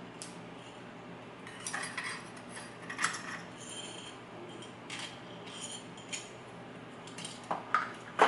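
Scattered small metallic clicks and clinks of lock picks working in a pin-tumbler lock, with a few sharper clinks near the end.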